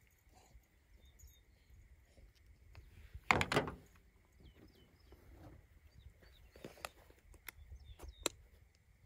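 Quiet handling noises: small gear and clothing being fiddled with, with a louder rustle about three and a half seconds in and a few sharp clicks near the end.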